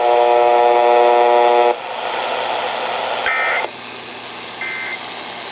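Emergency Alert System broadcast ending over AM radio. A steady buzzing tone cuts off after under two seconds, then come three short two-tone digital data bursts about a second and a half apart: the EAS end-of-message code. Radio static hisses underneath.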